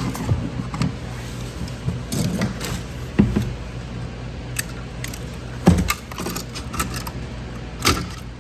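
Small clicks, rattles and knocks of hands handling electrical wires and plastic push-in wire connectors, with sharper knocks about three, six and eight seconds in, over a steady low hum.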